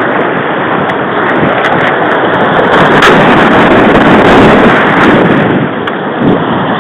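Whitewater rushing and churning through a concrete weir chute as a paddled boat drops down it, a loud, steady roar of water that swells through the middle and eases off near the end.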